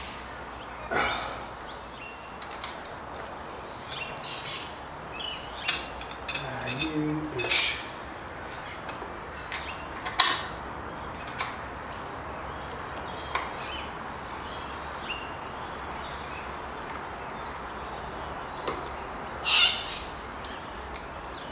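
Scattered metallic clicks and clinks of a motorcycle passenger floorboard, its mounting bracket and pivot pin being handled and knocked together while trying to line the floorboard up and push the pin through against spring-loaded detent balls. The sharpest clicks come about 10 seconds in and again near the end.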